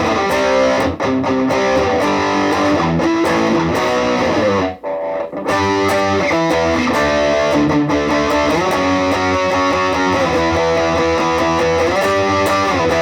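Vintage VS6 electric guitar played through a Positive Grid Reactor 50 combo amp on its Extreme amp model, with noise gate and reverb and the tone controls flat: distorted riffing that stops briefly about five seconds in, then carries on.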